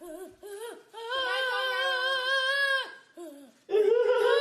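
A high voice drawn out in long, slightly wavering vowel sounds: one held for nearly two seconds, then after a short gap a second that begins about a second before the end, with brief voice sounds before and between them.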